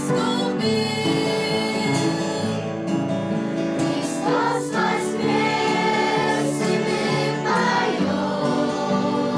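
A choir singing a Christian song with musical accompaniment.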